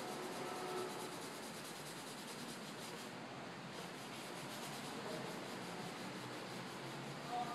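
A hand rubbing soft pastel into paper to blend the colour, a steady rubbing.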